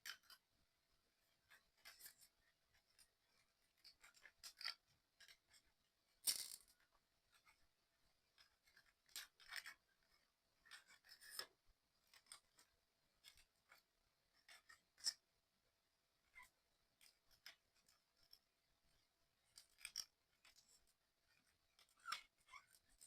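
Faint, scattered clicks and scratches of small 3D puzzle kit parts being handled and pressed together, with one sharper click about six seconds in.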